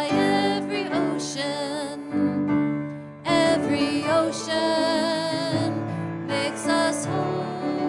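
Choir and congregation singing a hymn together with piano accompaniment, the notes held long, with a brief break between lines a little past two seconds in.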